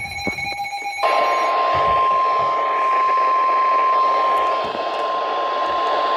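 An electronic alert tone with clicks, then about a second in NOAA Weather Radio's 1050 Hz warning alarm tone begins: one steady high tone over radio static, signalling that a warning broadcast is about to follow.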